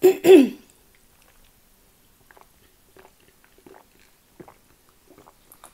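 After a brief word at the start, a person gulps down orange pop from a glass mug, each swallow a faint separate sound a little under a second apart.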